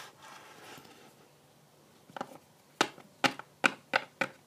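A run of about eight sharp plastic taps and clicks, starting about two seconds in. A Littlest Pet Shop toy figure is being tapped along the plastic playset by hand.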